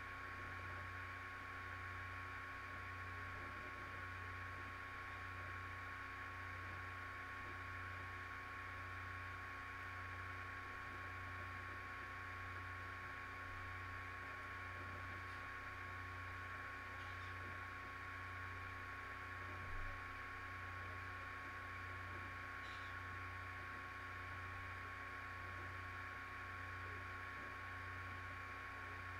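Steady electrical hum and hiss with a constant high whine and a low hum that pulses about once a second. There is a faint low bump about two-thirds of the way in.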